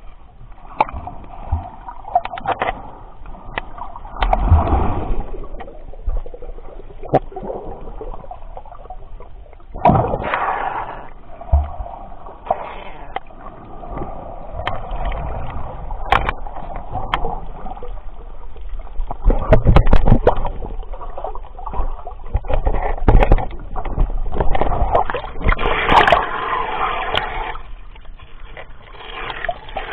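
Sea water sloshing, gurgling and splashing around a snorkeler's camera as it moves just under and at the surface, with scattered knocks and several louder splashing surges.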